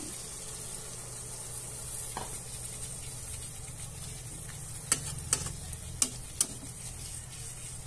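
Shrimp sizzling in a pan of garlic butter with their Sprite soaking liquid just poured in, a steady hiss. Four sharp clicks come about five to six and a half seconds in.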